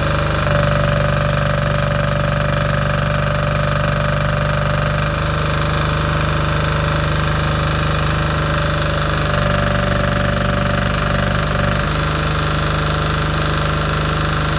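Yanmar YDG5500E diesel generator, with a single-cylinder Yanmar L100 engine, running steadily with a knocking diesel beat while it powers an inverter arc welder on a load test. The engine note shifts slightly a few times as the welding load changes.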